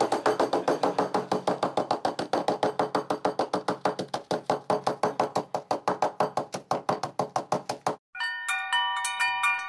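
Small peg hammer tapping rapidly and steadily on a sealed packet of coffee beans resting on a wooden block, crushing the beans, at about six light blows a second. The tapping stops about eight seconds in, and a short jingle of bell-like chime notes follows.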